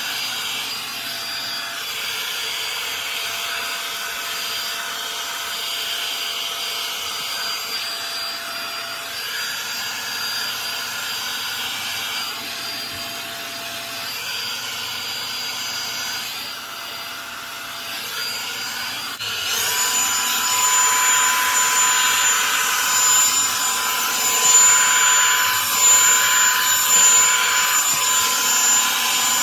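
Revlon One-Step Volumizer hot-air brush dryer running steadily: a rush of blown air over a thin motor whine. About two-thirds of the way through, it gets louder and the whine jumps higher, then holds.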